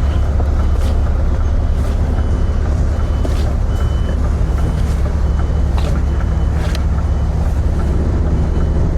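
Articulated lorry's diesel engine running steadily while reversing, with a reversing alarm beeping about once a second and a few short sharp noises.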